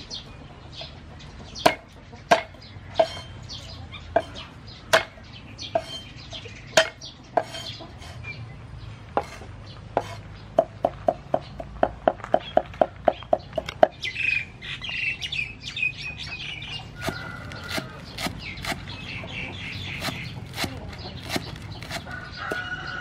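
Cleaver chopping on a round wooden cutting board: separate knocks at first, then a fast run of about six chops a second around the middle. Birds chirp in the background through the second half.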